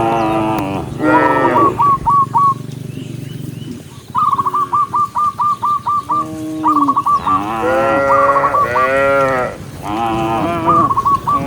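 Cattle in a herd mooing repeatedly, about six loud, drawn-out calls from several animals, some overlapping. Between the moos a bird gives rapid runs of short, repeated high notes.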